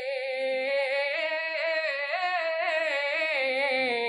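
A man's voice singing an unaccompanied naat, drawing out a single syllable in one long melodic run with a fast wavering vibrato. The line climbs in pitch after about a second and sinks back near the end.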